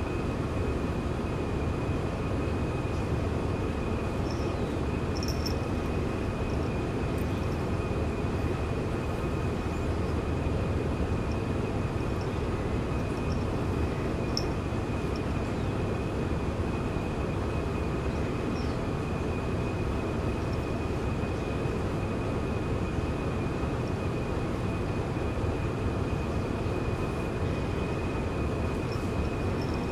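Steady low rumbling room noise with a thin constant high whine, like a fan or appliance running, and a few faint high chirps here and there.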